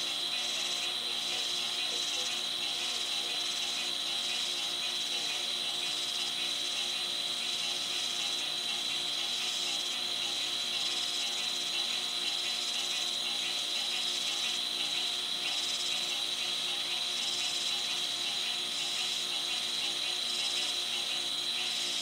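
Night-time insect chorus: crickets trilling steadily in one unbroken high tone, with a second, higher buzz pulsing rhythmically over it.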